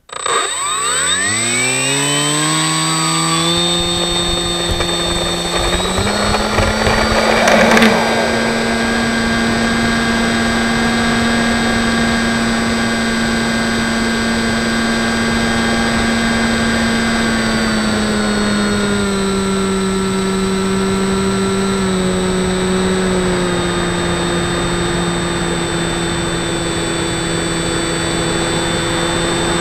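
RC FPV model plane's motor and propeller, picked up by the camera on board, spinning up with rising pitch over the first few seconds and then running steadily with a constant high whine. A short rushing noise comes about eight seconds in, and the pitch drops a little around eighteen seconds in.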